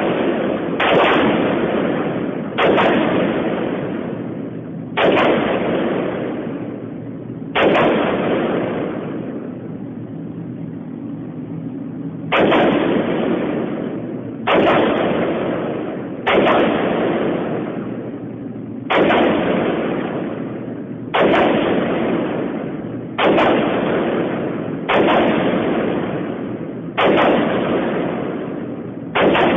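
AR-15 rifle fired one shot at a time, about thirteen shots at a steady pace of roughly one every two seconds, with a pause of about five seconds near the middle. Each shot is followed by a long, slowly fading echo.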